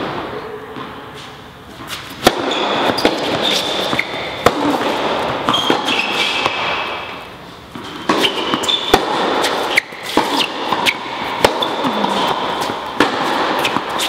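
Tennis rally on an indoor court: sharp pops of racquets striking the ball and the ball bouncing, roughly once a second, echoing in a large hall, with brief shoe squeaks on the court surface.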